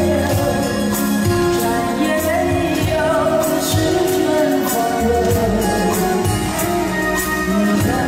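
A woman singing a Mandarin pop song live into a handheld microphone, with instrumental backing and recurring cymbal strokes.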